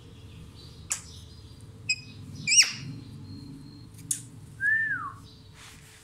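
Rose-ringed parakeets calling: short sharp chirps about a second apart, a loud warbling squawk in the middle, and a smooth falling whistle near the end.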